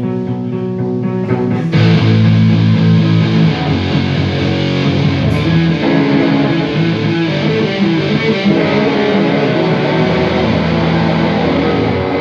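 Electric guitar played solo through an amplifier during a sound check, so the monitor wedge level can be set. It gets louder and fuller about two seconds in.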